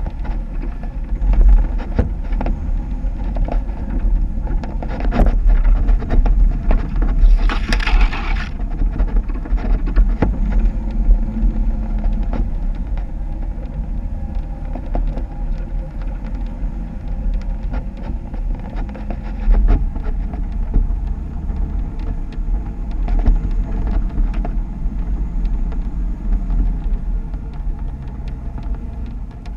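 Jeep driving off-road: a constant low engine-and-drivetrain rumble with frequent knocks and clunks, and a brief hiss about eight seconds in.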